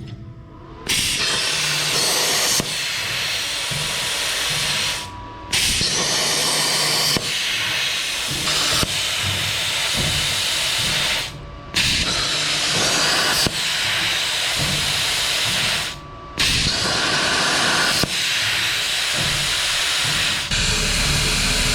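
Plasma cutter torch on a Langmuir Crossfire Pro CNC table cutting steel: a loud, steady hiss of the arc and air that starts about a second in and breaks off briefly three times between cuts.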